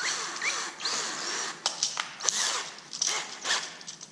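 Three-stone cylinder hone, driven by a drill, scraping round the WD-40-wetted cylinder bore of a 6.0 L LS engine block with squeaky chirps and a few clicks as it deglazes the wall to restore the crosshatch; it eases off near the end.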